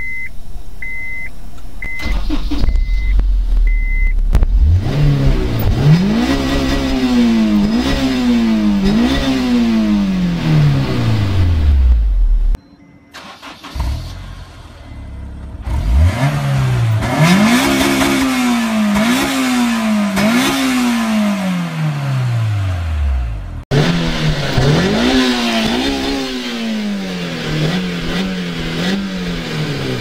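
Honda S2000's four-cylinder VTEC engine being revved in three separate takes, split by abrupt cuts. Each time the pitch climbs and blips up and down several times before falling away. In the last take it settles at a steady high speed. A short run of high beeps comes about a second in.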